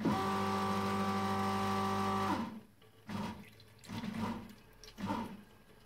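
An espresso machine's pump starts abruptly as the lever is pulled, running with a steady hum over a hiss of water for about two and a half seconds while it builds the 1-bar preinfusion pressure. It sags in pitch as it stops, followed by short quieter pulses about once a second.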